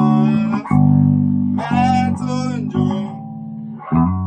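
Electric bass guitar playing a short line of held notes that step to a new pitch about once a second, the sixth-to-fifth-to-third bass movement under a worship-song chord.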